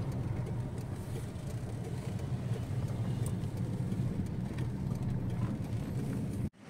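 Car engine and tyre rumble heard from inside the cabin as the car moves along, a steady low hum. It cuts off abruptly near the end.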